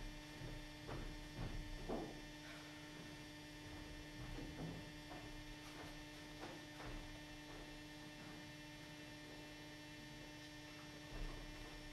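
Steady electrical mains hum on the recording. It has a few faint knocks about one and two seconds in, again around the middle, and once more near the end.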